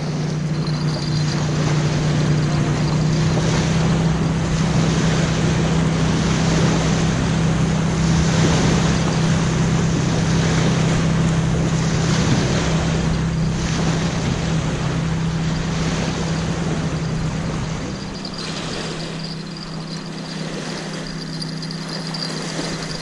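A steady low engine drone with wind buffeting the microphone and small waves lapping at the shore. The drone drops away about eighteen seconds in, leaving the wind and waves.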